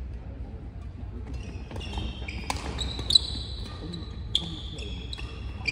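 Badminton rally: sharp racket strikes on the shuttlecock, the loudest about three seconds in, with shoes squeaking on the court floor between hits.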